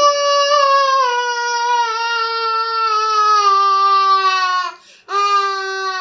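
A child's voice drawing out one long, slowly falling sound for nearly five seconds, then breaking briefly and holding a second, lower note.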